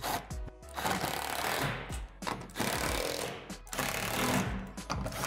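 Cordless power driver driving screws through a plastic shed roof panel into the metal roof truss, in about three runs of a second or so each with short pauses between.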